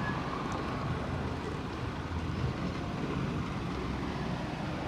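Steady outdoor street background: a low, even rumble of road traffic.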